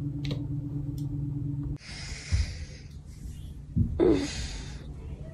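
A steady low hum, then after a cut two breathy exhales close to a phone microphone, the second starting with a little voice like a sigh.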